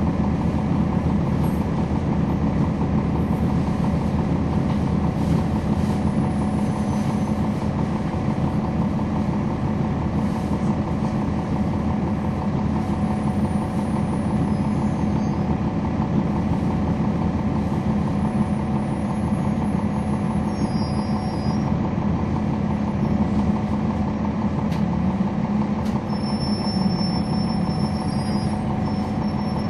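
Cummins ISL9 inline-six diesel engine of a NABI 40-SFW transit bus, heard from inside the bus, running with a steady hum.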